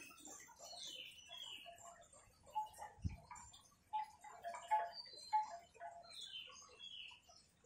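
Faint birdsong: scattered high chirps and short pips, with a falling two-note whistle heard twice. There is a soft low thump about three seconds in.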